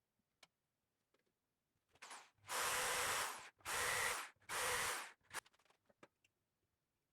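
Three short bursts of loud hissing, one after another, the first about a second long and the other two shorter, with a few faint ticks around them.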